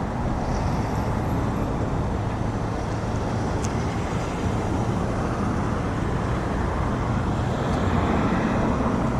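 Steady road traffic passing by, mixed with a low rumble of wind on the microphone.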